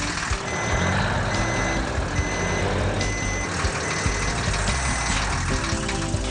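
A truck's reversing alarm beeping about six times, roughly one beep a second, over the noise of its running engine.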